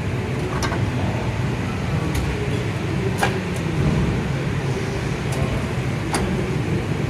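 A 2010 LVD Strippit 135/30 CNC press brake running with a steady low hum, with a few short sharp clicks.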